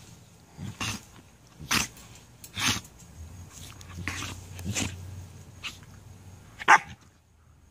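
Puppies play-fighting, with a series of short, sharp yips, about seven in all. The loudest comes near the end.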